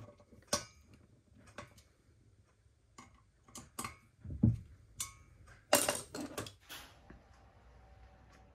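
Irregular sharp metallic clicks and clinks of a hex key working the camshaft bearing cap screws on an aluminium motorcycle cylinder head. The loudest clinks come about six seconds in.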